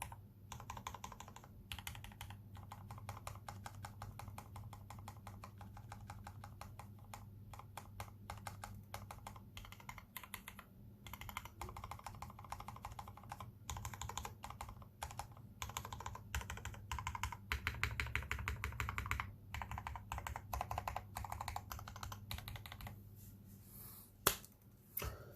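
Custom KBD67 v2 mechanical keyboard with brass plate, tuned Cherry MX Black Retooled linear switches and PBT doubleshot keycaps, typed on quickly and continuously in rapid runs of keystrokes with a few brief pauses. Near the end there is one single, louder keystroke.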